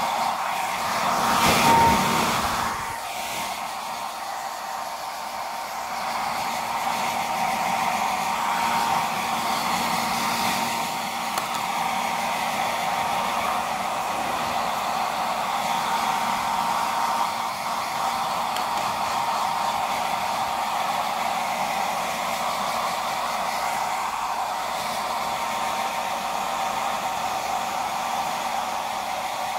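Handheld hair dryer running steadily, blowing air to dry a wet dog's fur after a bath: a rush of air with a thin high whine. It gets briefly louder about two seconds in.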